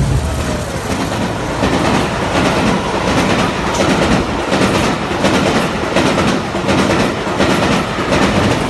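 Diesel-hauled passenger train passing close by at speed, its coach wheels clacking over rail joints in a steady rhythm under a loud rumbling roar. The low engine drone of the leading Class 50 locomotives tails off within the first second.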